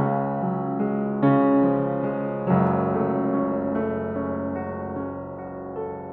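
Danemann acoustic piano played in sustained chords, a loud chord struck about a second in and a deep bass chord about two and a half seconds in that rings on and slowly dies away.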